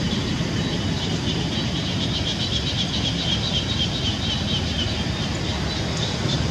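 Outdoor ambience: a steady low rumble with a fast, high-pitched pulsing chirr of insects over it.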